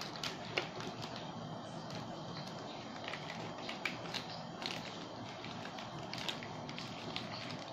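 Thin plastic food bag crinkling and rustling as it is handled in the hands, with irregular sharp crackles.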